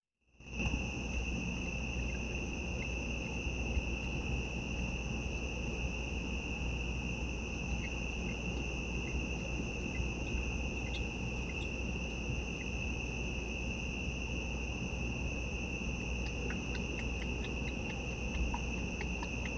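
Crickets trilling in one steady, unbroken high-pitched note, over a low even hiss.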